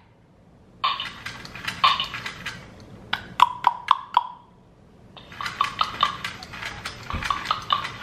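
Chatty Patty electronic repeating parakeet toy playing back sound through its small speaker: choppy, high-pitched chirping in two runs, starting about a second in and again about five seconds in.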